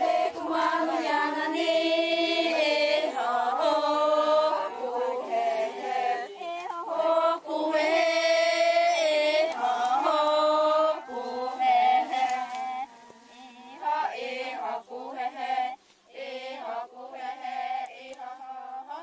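A group of women's voices chanting in unison, holding long sustained notes at first. In the second half it breaks into shorter, choppier phrases.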